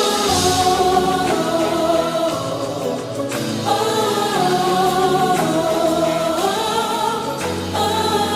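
Gospel song playing: a choir singing held notes over a band with a steady bass line.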